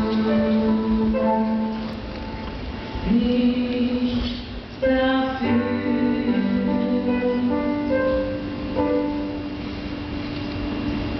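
Music: the slow intro of a pop song, with held keyboard notes and a melody line and a note sliding up about three seconds in.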